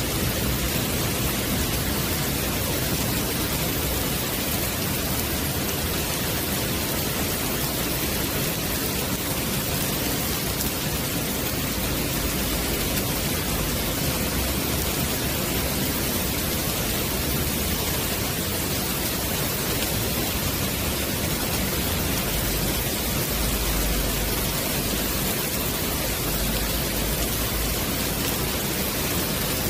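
Heavy rain falling steadily onto a wet wooden deck and the trees around it, a dense, even hiss.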